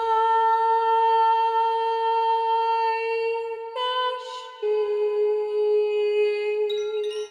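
Long held humming notes over soft meditative music. One steady note is held, then the pitch steps to another about halfway through.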